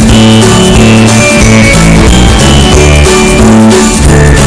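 Background music: a guitar-led track with a steady bass line.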